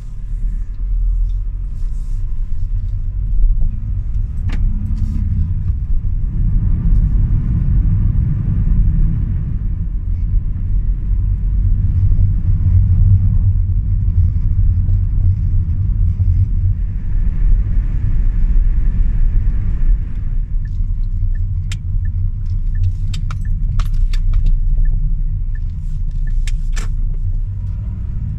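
Car being driven on the road, heard from inside the cabin: a steady low rumble of road and engine noise, with light clicks and rattles that become frequent in the second half.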